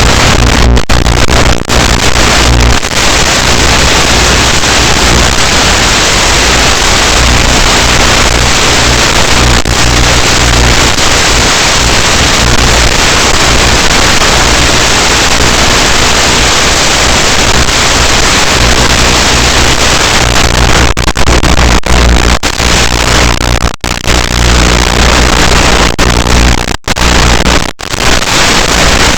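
Loud, steady rushing noise on an FPV racing drone's raw flight recording, cutting out briefly a few times near the end.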